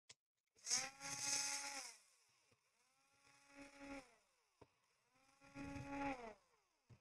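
Small electric screwdriver motor whirring in three short runs, backing out screws. Each run rises in pitch as it spins up and drops as it stops; the first is the loudest, and there are a few faint clicks between them.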